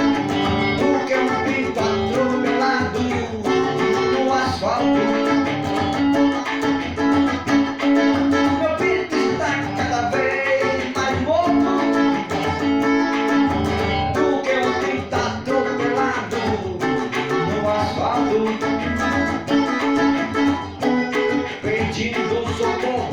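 Music: a song led by guitar, playing throughout.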